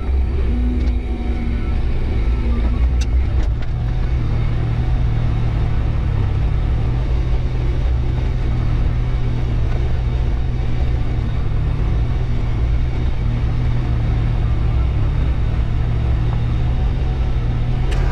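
New Holland TT4.65 tractor's diesel engine running under load as it pulls a mounted plough through the soil, a steady low drone.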